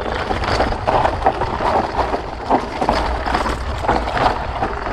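Sport-On Explorer off-road handcycle rolling slowly down a rutted dirt trail: tyres on dirt and stones, with frequent small rattles and knocks from the frame and suspension over a low rumble.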